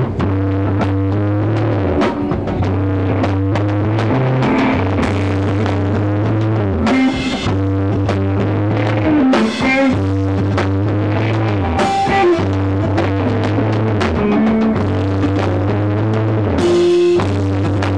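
Rock band playing live and loud: a drum kit with repeated cymbal crashes over a heavy low riff in long held notes on guitar and bass.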